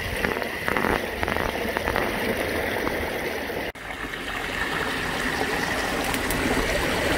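Water from a pond's spillway running and splashing over stones in a small stream, a steady rush with a brief break near the middle.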